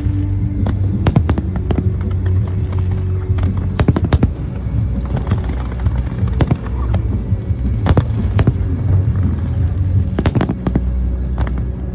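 Aerial fireworks bursting: many sharp bangs and crackles at an irregular pace, several in quick clusters, over a steady low rumble.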